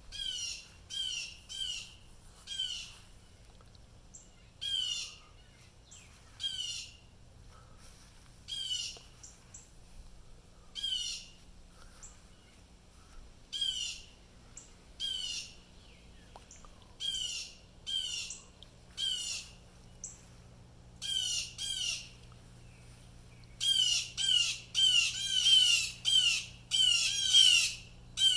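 Blue jays giving repeated harsh jay calls, one every second or two, then a faster, louder run of calls in the last few seconds. The birds are agitated, an alarm reaction to something they saw or heard.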